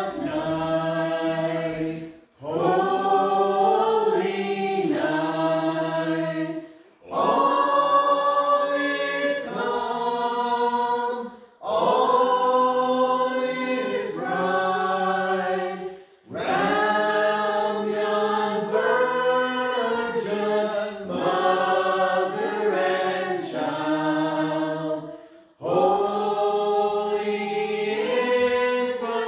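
Small mixed group of men, women and children singing a Christmas carol together, in long phrases with brief pauses between them.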